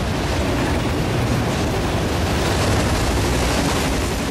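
CN freight train's enclosed autorack cars passing close at speed: a steady rumble of steel wheels on the rails, with the last car going by near the end.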